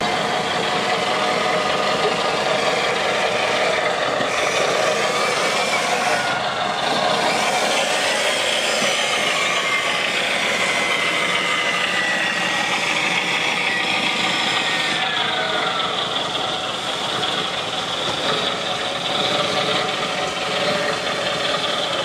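8x8 scale RC trial truck running steadily with an engine-like sound as it crawls over rocks, with a whine that holds for several seconds and drops away about two-thirds of the way through.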